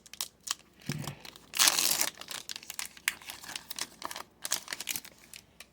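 Foil wrapper of a hockey trading-card pack crinkling and tearing in the hands, in a run of short crackles, loudest for about half a second near the two-second mark.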